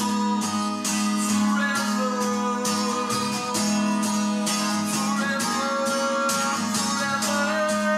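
Acoustic guitar strummed in a steady rhythm while a man sings a slow worship song.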